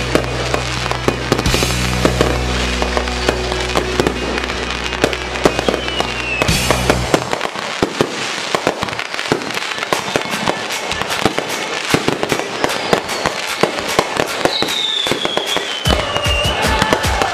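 Aerial fireworks bursting overhead: a dense run of bangs and crackling stars with no break, and a falling whistle near the end. Music with a steady bass runs underneath, drops out about seven seconds in and comes back with a pulsing beat near the end.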